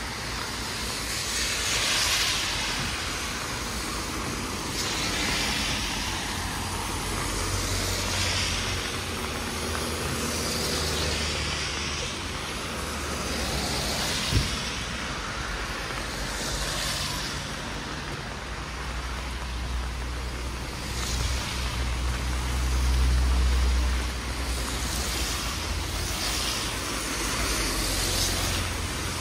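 Rainy street traffic: tyres hissing on the wet road as cars pass every few seconds over a low rumble of engines. A single sharp knock sounds about fourteen seconds in.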